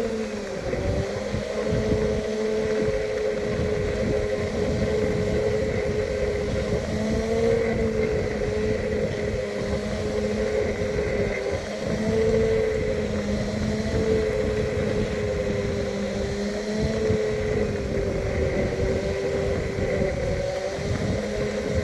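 Segway personal transporter's electric drive motors whining steadily, the pitch wavering slightly as speed changes, with wind buffeting on the microphone underneath.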